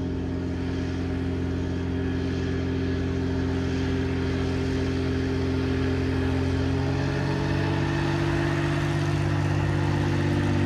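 A Pilatus P-3 trainer's six-cylinder Lycoming piston engine and propeller running at low taxi power, a steady drone that grows slightly louder as the aircraft comes closer, with a small change in pitch about seven seconds in.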